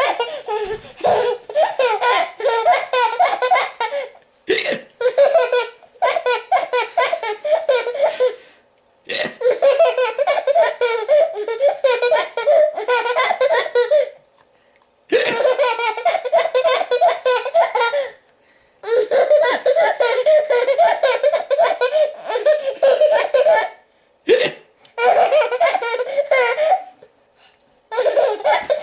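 A baby laughing hard in long bouts of several seconds, broken by short pauses, with hiccups between bouts.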